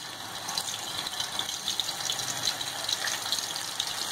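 Pieces of marinated boneless chicken frying in hot oil in a pan: a steady sizzle full of small crackles.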